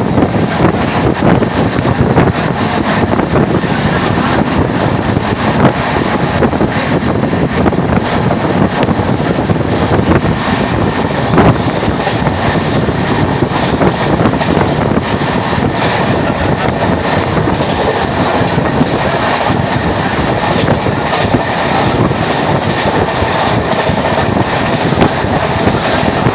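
Indian Railways train running at high speed, around 130 km/h: a loud, steady rumble and rattle of wheels on the rails.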